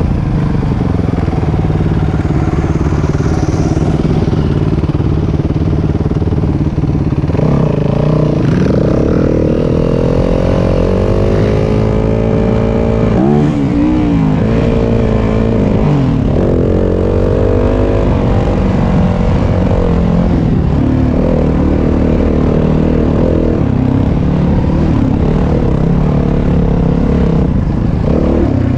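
Yamaha WR250F's single-cylinder four-stroke engine running under load on a dirt trail. Its pitch rises and falls again and again as the throttle opens and closes, most markedly in the middle stretch.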